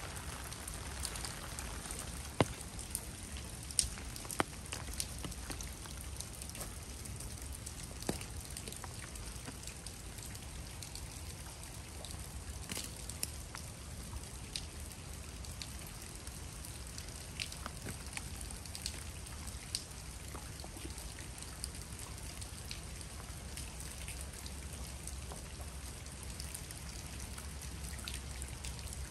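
Steady rain falling, with scattered individual drops landing as short sharp ticks, a few louder ones in the first few seconds.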